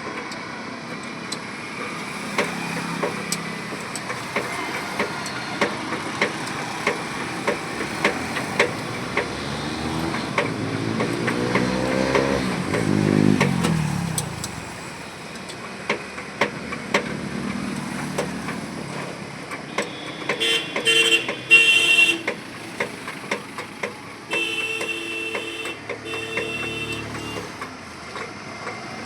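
Street traffic: a vehicle passes with a falling pitch a little before the middle, then horns honk in short repeated toots in the second half, the loudest sounds. Sharp knocks repeat every second or so throughout.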